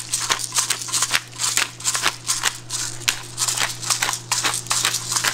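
Pepper grinder being twisted over raw fish, a fast run of crisp, gritty grinding clicks, several a second.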